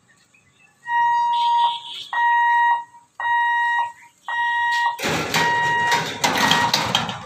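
Level-crossing warning hooter sounding while the boom barriers lower: a high electronic tone in long beeps, about one a second. For the last two seconds a loud rushing noise partly covers it.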